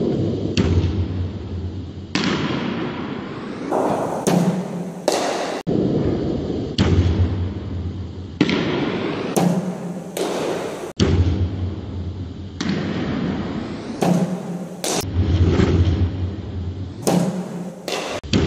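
BOLA bowling machine throwing cricket balls, each release a sharp knock followed about half a second later by the crack of the bat meeting the ball; four such pairs, echoing in a large hall over a low steady rumble.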